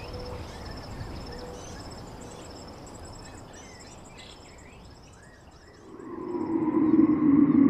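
Outdoor nature ambience: scattered bird chirps and a thin, rapidly pulsing insect trill over a steady background hiss. About six seconds in, a loud, low, sustained droning tone with a slowly wavering higher tone above it swells up and takes over.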